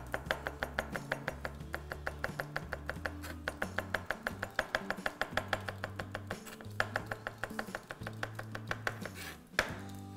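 Knife chopping a green chilli finely on a plastic cutting board: quick, even strokes about five a second that stop shortly before the end, with background music underneath.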